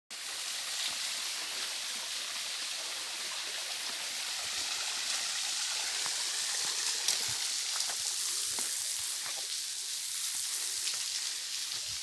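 Waterfall: a steady hiss of falling water, with a few faint clicks in the second half.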